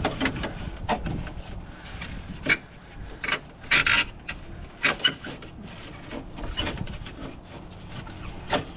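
Scattered clicks, knocks and scraping of hard parts being handled as an old car horn and its mounting bracket are worked free, with a longer scrape about four seconds in.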